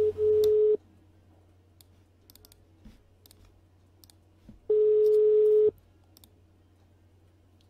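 Telephone ringback tone heard over the phone line while a call waits to be answered: two steady one-second beeps about four seconds apart. Faint clicks fall in the gap between them.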